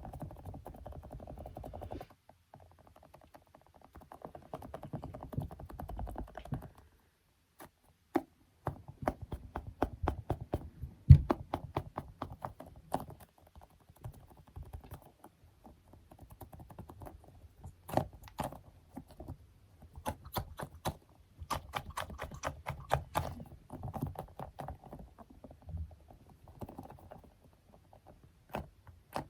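Close-miked ASMR tapping and patting on small objects such as squishy toys and stickers. Stretches of dense crackly rubbing alternate with runs of sharp separate taps and clicks.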